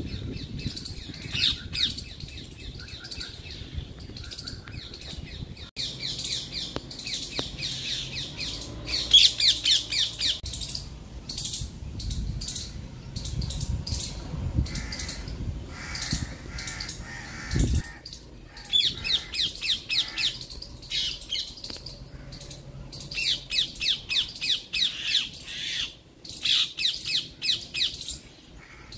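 Indian grey hornbill calling: repeated bursts of rapid, high squealing notes, loudest about nine seconds in.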